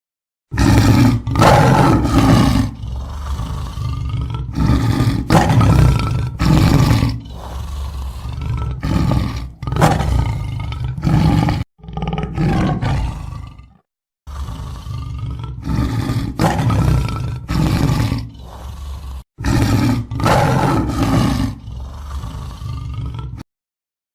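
Tiger roaring and growling over and over, a run of loud, deep roars with short gaps between them. There is a brief pause about halfway through, and the roaring stops shortly before the end.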